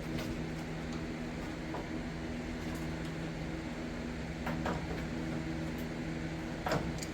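Steady mechanical hum of a running machine such as a shop fan, with a few light knocks scattered through it, the last a little louder near the end.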